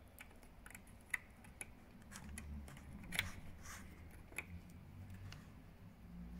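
Faint, scattered small plastic clicks and taps as fingers handle and push home the mirror's three-pin wiring plug, the loudest click about three seconds in.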